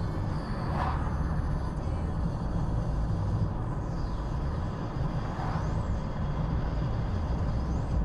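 Steady road and engine noise of a moving car heard from inside the cabin, a deep even rumble with no change in pace.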